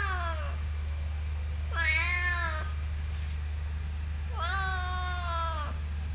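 A young tabby cat meowing: the end of one meow at the start, then two long, drawn-out meows about two and a half seconds apart, each rising at the onset and sagging slightly in pitch at the end.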